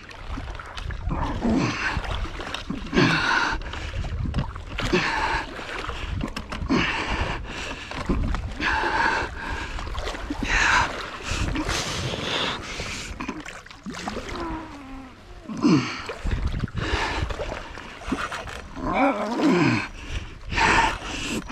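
A hooked catfish thrashing and splashing at the surface right beside a float tube, in irregular bursts every second or two. The angler's heavy breathing and grunts come through as he fights it.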